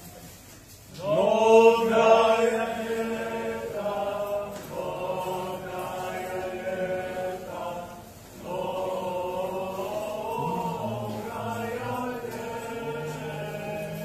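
A Serbian Orthodox congregation singing a church hymn together, heard over a video call through a laptop's speaker. The singing starts about a second in and runs in long held phrases, with a brief dip a little past halfway.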